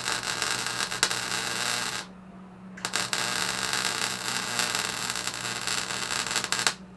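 Electric arc welding a patch plate onto a thin, rusted catalytic-converter exhaust pipe: a loud crackling hiss that stops for under a second about two seconds in, runs again for about four seconds and cuts off just before the end, over a steady low hum.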